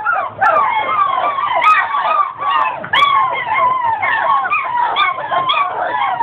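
A litter of 45-day-old American bully puppies whining and crying together, many short high cries overlapping, most falling in pitch.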